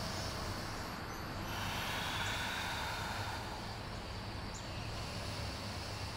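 Steady, low background noise with a constant low hum; no distinct event stands out.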